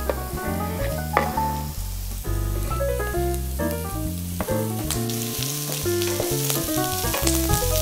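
Sliced root vegetables (carrot, parsley root, celeriac) dropping into a hot oiled frying pan and sizzling as they are stirred with a wooden spatula. The sizzle grows louder from about five seconds in. Instrumental background music plays throughout.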